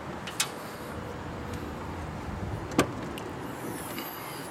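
Latches clicking as the spare-tire carrier and rear tailgate of a Toyota Land Cruiser 80 series are opened: a light click about half a second in and a louder clack just under three seconds in, over steady background noise.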